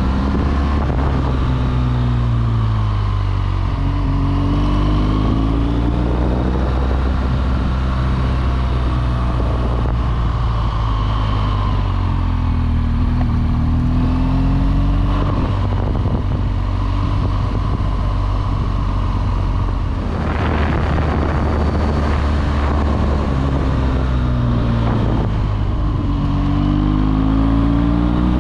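BMW R1200GS Adventure's boxer-twin engine running on the move, its pitch rising and falling over and over as the throttle is opened and eased. A brief rush of noise comes about two-thirds of the way through.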